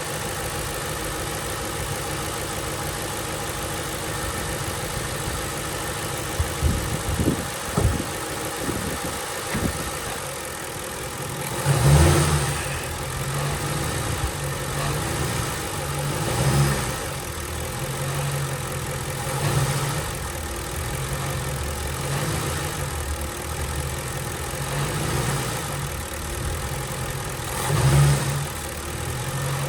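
2007 Ford Crown Victoria's 4.6-litre V8 running, with several short surges as the gas is pressed, the strongest about twelve seconds in and near the end. This is the throttle-dependent passenger-side rattle the owner is trying to locate. A few dull knocks come shortly before the first surge.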